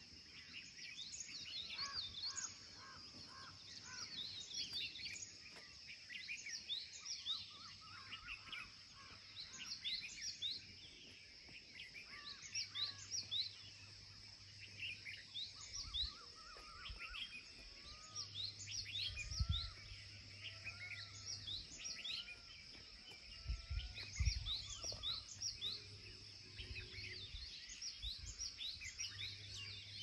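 A chorus of many birds chirping and calling, with short quick notes overlapping throughout and a steady high whine underneath. A few low thumps on the microphone come partway through.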